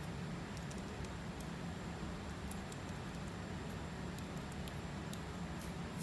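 A fine-tooth comb scraping across a flaky scalp at the roots of short hair, lifting loose flakes: irregular faint scratchy ticks over a steady low hum.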